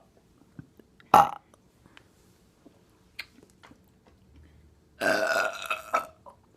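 Two deliberate burps brought up after drinking Coca-Cola: a short one about a second in, then a long, drawn-out one near the end.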